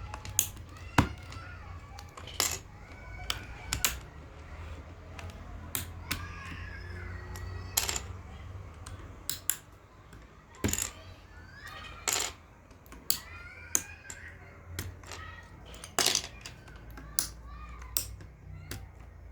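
Plastic keycaps being pried off a mechanical keyboard and set down, giving irregular sharp clicks and clacks, some loud, at no steady rhythm.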